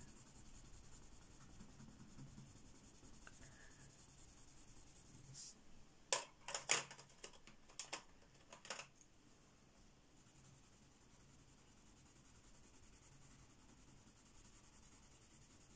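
Faint scratching of a coloured pencil shading a swatch on paper. In the middle come a handful of sharp clicks and taps as pencils are set down and picked up.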